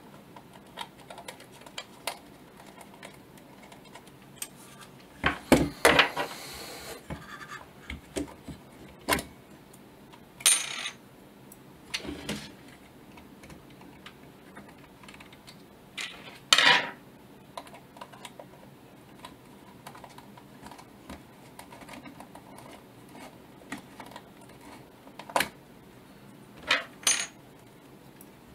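Metal tweezers and fingers working inside an old folding camera's metal body, making irregular small clicks, taps and clinks, with a cluster of louder knocks about six seconds in and another near the middle.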